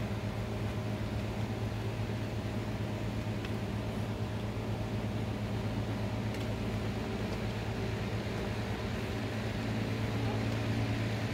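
Steady mechanical hum from a running motor-driven machine, holding one constant low pitch, with a few faint ticks.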